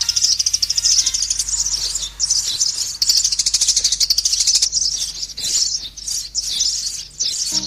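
Sparrows chirping in a dense, rapid, high-pitched chatter of fast repeated notes, from a recording meant as a lure call to attract sparrows.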